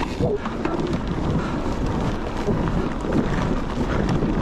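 Wind buffeting the camera microphone as a mountain bike rides a dirt trail, with the tyres rumbling over the dirt and small clicks and rattles from the bike.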